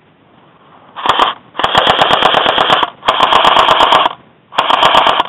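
Airsoft rifle firing on full auto close to the microphone: four bursts of rapid clicking shots, a short one about a second in, two longer bursts of over a second each, and a short one near the end.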